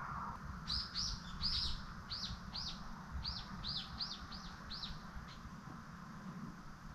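A bird outside calling in a quick series of about a dozen short, high, down-slurred chirps. The chirps stop about five seconds in. A faint low steady rumble runs underneath.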